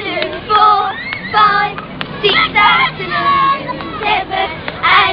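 Girls chanting a sing-song playground rhyme together, with light sharp taps roughly every half second in time with the chant.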